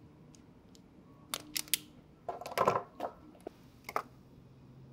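A handful of small sharp clicks and a brief rustle from handling a self-adjusting wire stripper and short lengths of stripped wire on a wooden bench.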